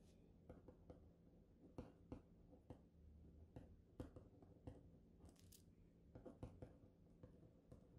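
Faint pen strokes and taps on loose-leaf paper as figures are written by hand: short irregular scratches, some in quick clusters, over quiet room tone.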